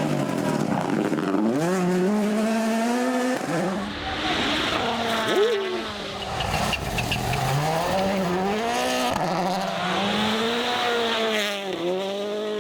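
Rally car engine revving hard through the gears, its pitch climbing and then dropping sharply at each shift, several times over.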